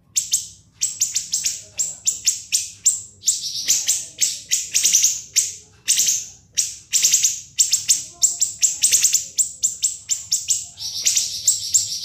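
Siri-siri bird singing a rapid, dense run of sharp, shrill high notes. Longer trilled bursts come about four to five seconds in and again near the end.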